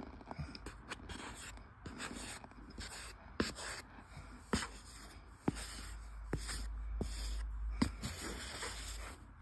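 Bar of Irish Spring soap rubbed and pressed into loose cornstarch. The powder crunches and squeaks under it in irregular sharp crunches over a steady rubbing hiss.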